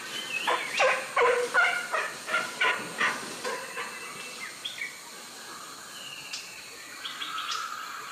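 A bird calling a rapid series of harsh notes, about three a second for some three seconds, then a few softer calls, over a steady high insect-like hum.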